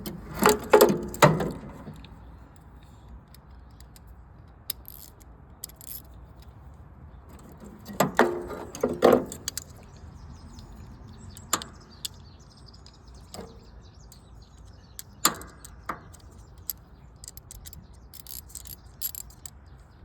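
An 8mm socket wrench and metal parts clinking while a nut is worked onto a lawn-tractor starter solenoid terminal: scattered sharp metallic clicks and rattles in a few short clusters, the loudest in the first second and again about eight seconds in.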